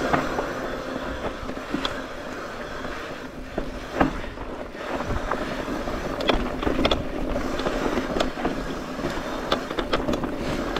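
Electric mountain bike rolling along a dirt trail: a steady rough rolling and rattling noise with a faint steady hum, and scattered sharp knocks as the bike goes over bumps.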